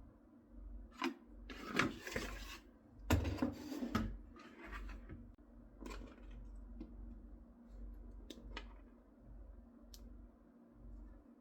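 Hand work on plastic welding-mask parts: rough scraping and rubbing for a couple of seconds, then scattered sharp clicks and taps.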